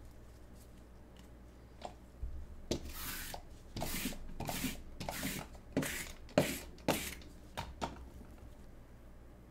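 Gloved hands sliding trading cards and rubbing across a table mat: a run of short swishing rubs starting about three seconds in, loudest about six seconds in, fading out near the end.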